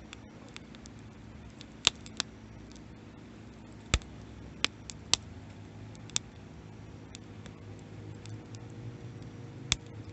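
Wood campfire crackling: sharp pops and snaps at uneven intervals, a few much louder than the rest, over a faint steady background.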